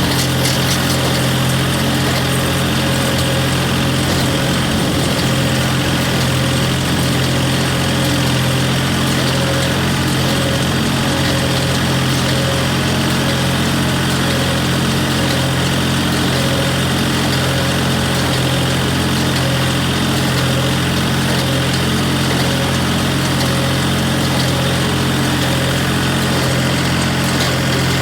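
Case 385 tractor engine running steadily at an even speed while driving a John Deere 14T hay baler.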